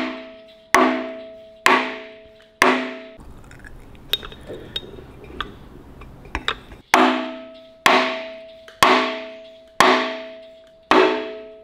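Blue mallet striking a new harmonic balancer to drive it onto the crankshaft nose of a rebuilt Holden 161 six, where it is a press-on fit with no retaining bolt. Sharp blows about one a second, each ringing out metallically: four blows, a pause of about four seconds with light handling noise, then five more.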